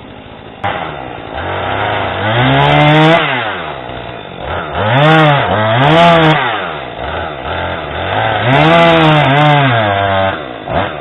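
Husqvarna 440e chainsaw's 40.9 cc two-stroke engine throttled up from idle about a second in. It revs up and falls back four times, then drops back to idle near the end.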